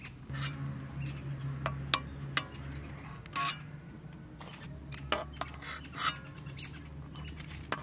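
A cooking utensil clicking and scraping against a pot as boiled fish dumplings are lifted out of their water one by one and drained, over a low steady hum.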